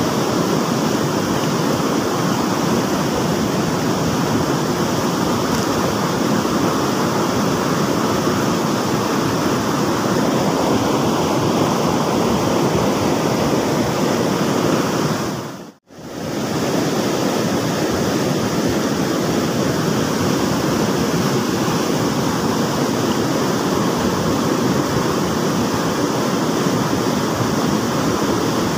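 River rapids rushing steadily close by, a loud even wash of white water. The sound cuts out for a moment about halfway through, then resumes.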